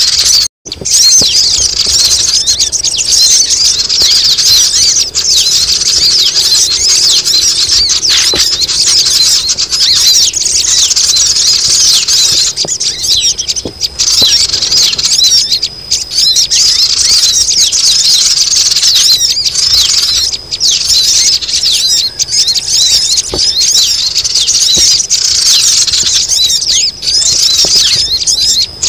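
Dense, busy chorus of many high-pitched bird chirps and squeaks overlapping without pause. It is a sogon-bird lure call ("suara pikat") played to draw wild birds down, with a brief gap about half a second in.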